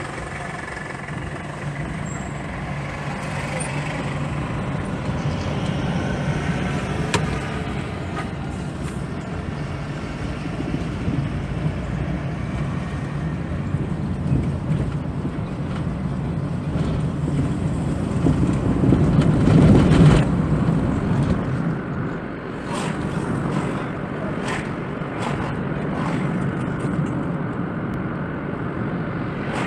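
Steady engine and road noise from inside a moving car, swelling louder for a few seconds about two-thirds of the way through.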